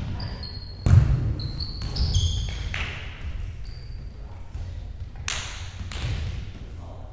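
Volleyball being struck during a rally, a few sharp smacks with the loudest about a second in, with short high sneaker squeaks on a hardwood gym floor in the first half. Each hit echoes around the large gym.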